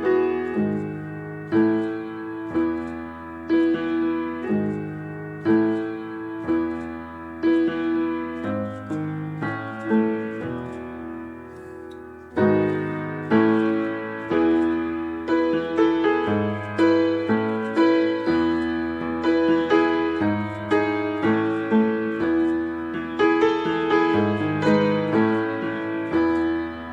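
Background piano music, with notes struck about once a second, each fading away.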